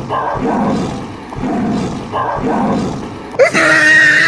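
Recorded lion roars played for a fake plush lion: three rough roars in a row, followed near the end by a loud, high-pitched, sustained cry.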